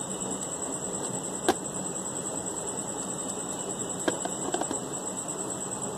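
Needle-nose pliers clicking on the metal hex nut of a quartz wall-clock movement as the nut is tightened onto the hand shaft. A few sharp clicks come through: one about a second and a half in, and a small cluster around four to five seconds in, over a steady faint high whine.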